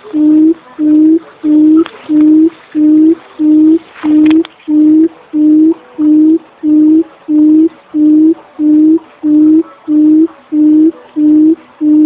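Barred buttonquail's low hooting call, one short note repeated evenly about one and a half to two times a second. It is a decoy call used to lure quail.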